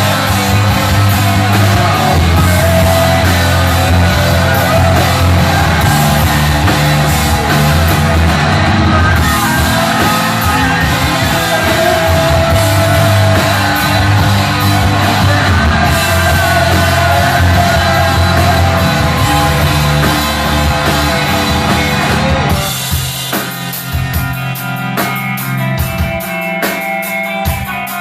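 Rock band playing live, loud, with full band and sung vocals. About 22 seconds in it drops to a quieter, sparser passage of drum hits and ringing guitar.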